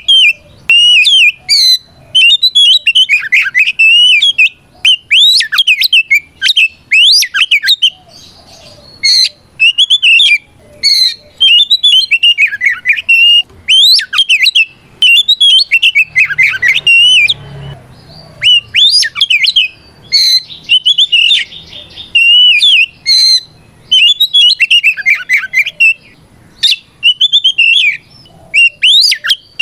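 Oriental magpie-robin (kacer) singing loudly: rapid, varied phrases of sweeping whistles and warbles, one after another with short pauses. This is the male's full 'ngeplong' challenge song, which calls out a rival and provokes other magpie-robins to answer.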